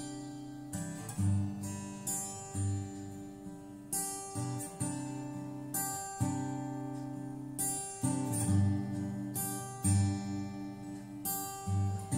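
Instrumental music: an acoustic guitar strumming slow chords, each strum ringing out and fading, with low bass notes on some beats.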